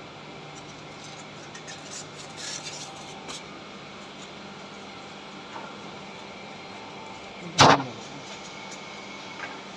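Steady hum and noise of industrial plant machinery, with a few faint clicks and one sharp, loud knock about three-quarters of the way through.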